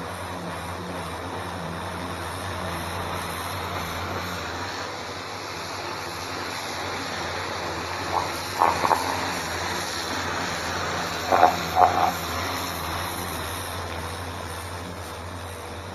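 Stihl pressure washer running with a steady motor-and-pump hum and the hiss of its water jet on the patio slabs. A few short, louder squeak-like sounds stand out about halfway through.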